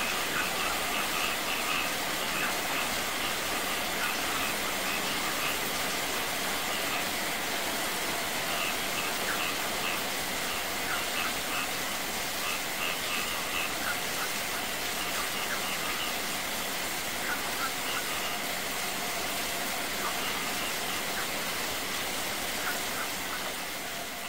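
Heavy rain spattering onto a pool and paving, with a small waterfall running over rocks and a stream of water pouring down from above into the water: a steady, even rush, with short high notes coming and going through it. It fades out near the end.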